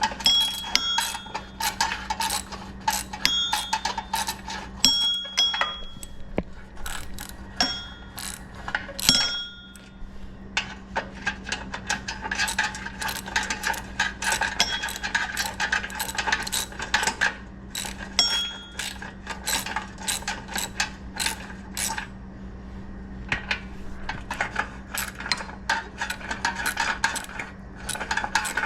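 Ratchet wrench clicking in quick runs while tightening exhaust bolts on a mini bike, with sharp metallic clinks of socket and metal parts, over a faint steady hum.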